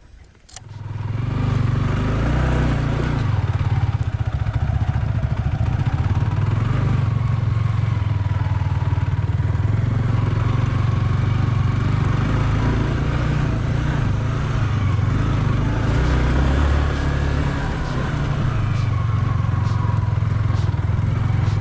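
Single-cylinder motorcycle engine running steadily while riding off-road, coming in strongly about a second in and holding with only small changes in level.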